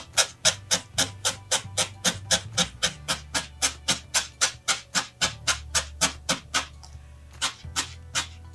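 Felting needle stabbing repeatedly through wool roving into a foam pad: quick, crisp pokes at about four or five a second, pausing briefly near the end before starting again.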